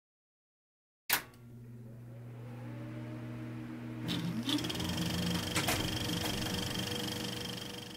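Sound effects for an animated logo intro. About a second in there is a sharp hit, then a low steady hum that slowly swells. About four seconds in a second hit comes with a short rising sweep, followed by a few sharp clicks and a high steady tone, and the sound cuts off abruptly at the end.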